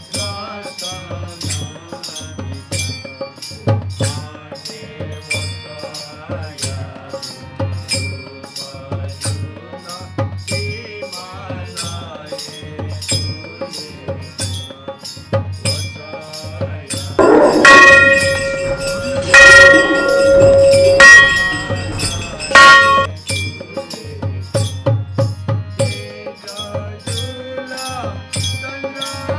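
Background music with a steady drum-and-shaker beat. A little past halfway the beat drops out for a few loud, ringing bell strikes, then returns.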